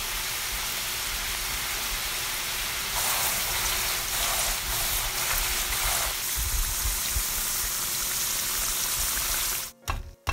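Sweet potato sticks deep-frying in hot oil: a steady sizzle and crackle of bubbling oil, louder for a few seconds in the middle. It stops abruptly near the end.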